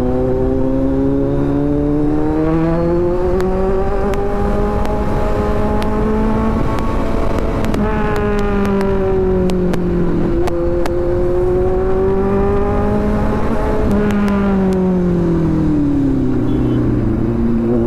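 Kawasaki Z900's inline-four engine through a loud SC Project aftermarket exhaust, pulling under throttle while riding. The engine note climbs slowly for several seconds, dips, climbs again, then falls away near the end.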